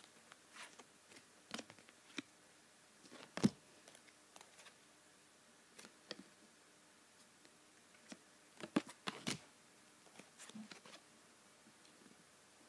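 Football trading cards being handled and sorted: scattered light clicks and flicks of card, with a sharper knock about three and a half seconds in and a quick cluster around nine seconds.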